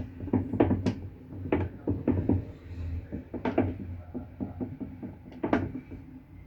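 Consul Facilite 11 kg washing machine running its rinse cycle: a steady motor hum under a series of irregular knocks and clunks as the load is churned.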